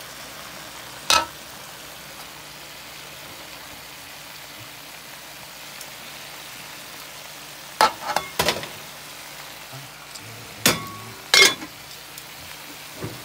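Beef, potatoes and vegetables sizzling steadily in a pan while being stirred with a plastic spoon. The spoon knocks and scrapes against the pan once about a second in, several times around eight seconds, and twice more near eleven seconds.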